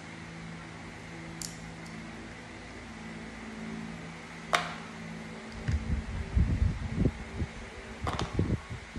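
Electric stand fan running with a steady hum. A few sharp clicks sound through it, and low thumps and rumbling come in the second half.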